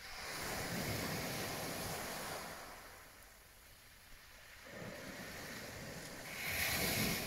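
Sea surf breaking on a shingle beach in two surges. The second surge, near the end, is louder and ends in a hiss.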